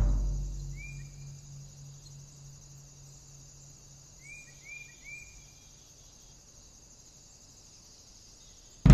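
A loud drum-and-music hit dies away at the start, leaving faint outdoor ambience: a steady high insect drone with a low hum beneath it. A few short bird chirps come through, one about a second in and three in quick succession around four to five seconds in. A sudden loud hit lands at the very end.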